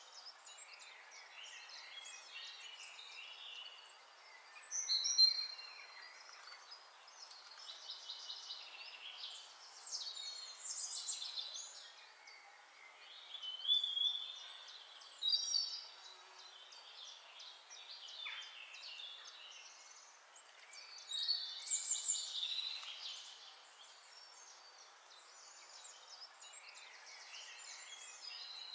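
Songbirds chirping and singing, several short whistled calls and trills overlapping, coming in bunches every few seconds over a faint hiss.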